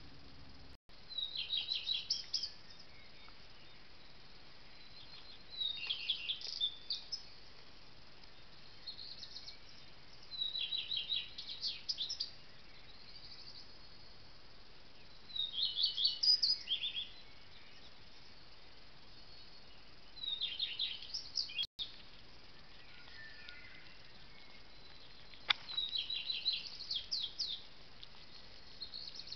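A songbird singing at night: short phrases of quick repeated high notes, one phrase every four or five seconds, over a faint steady hiss.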